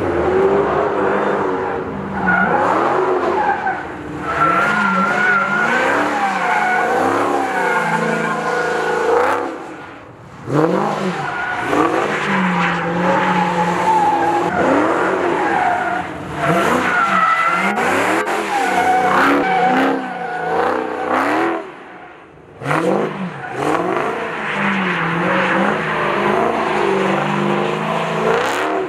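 Supercharged 6.2-litre Hemi V8 of a Dodge SRT Hellcat revving up and down again and again as the car drifts, with tyres squealing. The engine note drops away briefly twice.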